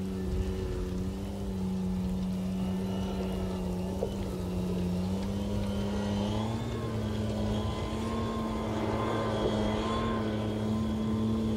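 Engine of a Spartan tracked armoured vehicle running steadily, its note rising slightly about six seconds in.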